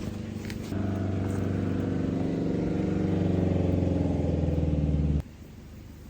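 A motor running with a steady hum, stepping up in level about a second in and cutting off suddenly about five seconds in.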